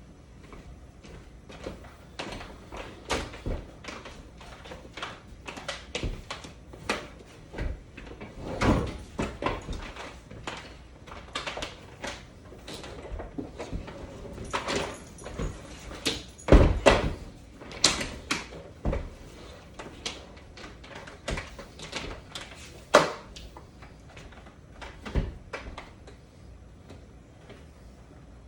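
Irregular knocks, bumps and clatters of a vacuum cleaner being handled and stowed, with a door being opened and shut. The loudest bangs come just past halfway and again near the end.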